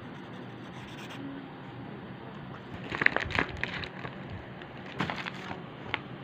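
Clear plastic stationery pouch crinkling as it is handled, in two bouts about three and five seconds in, the first the louder, with a sharp click near the end.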